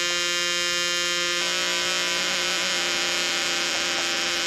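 Steady buzzing electronic tone with many overtones from the 160-in-One electronic kit's circuit patched into a Kastle Bastl semi-modular synth. About a second and a half in, the tone turns rougher and noisier.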